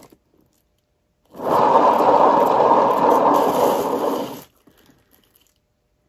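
Hand-spun painting turntable under a wet acrylic pour, giving a steady noisy whir for about three seconds that starts and stops abruptly.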